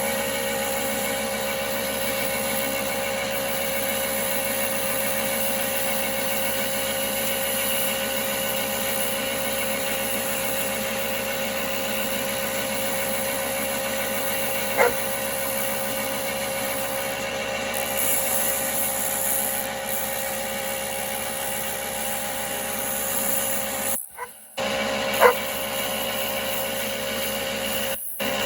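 1939 Pow-R-Kraft wood lathe running steadily, a constant electric motor hum with several fixed tones. Two short sharp sounds cut through it, about halfway through and near the end, and the sound drops out briefly twice near the end.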